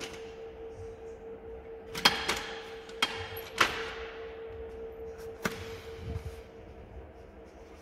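Sharp clacks and knocks from a folding makeup artist chair's frame as it is pushed open and its parts pressed into place, about five in a few seconds, the first the loudest. A steady hum runs underneath.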